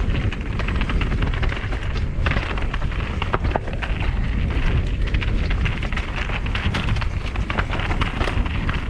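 Mountain bike ridden over rocky trail: wind rumbling on the microphone, tyres rolling over rock and gravel, and a constant clatter of small knocks and clicks from the bike over the bumps.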